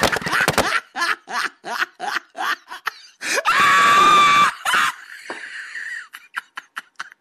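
Firecrackers crackling in a quick string at the start, then a person laughing in rapid short bursts, then a long high-pitched scream about halfway through.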